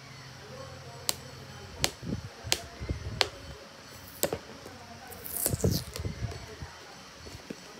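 Hands handling a cardboard figure box with a clear plastic window: a handful of sharp clicks and taps as fingers work at the lid, then a short scraping rustle about five and a half seconds in as the box is opened.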